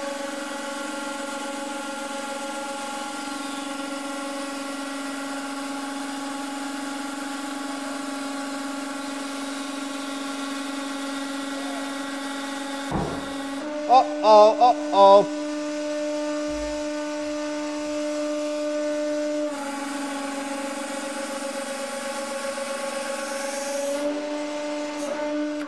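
Hydraulic press running with a steady hum while its ram squeezes a solid copper cylinder. About halfway there is a sharp click, then three or four short, loud squeals that waver in pitch. The hum carries on with a changed tone as the load comes off and the ram rises.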